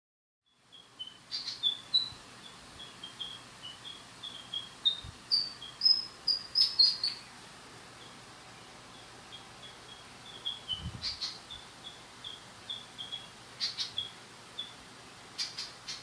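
Birds singing: a long run of short, slightly falling whistled notes, about two or three a second, mixed with louder, higher notes and a few sharp calls. The song is loudest about five to seven seconds in, thins out for a couple of seconds, then picks up again.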